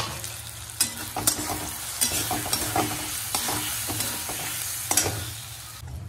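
Flat spatula scraping and tapping around a kadai as gram-flour batter is stirred into frying green chillies, over a steady sizzle of hot oil. The strokes come at uneven intervals.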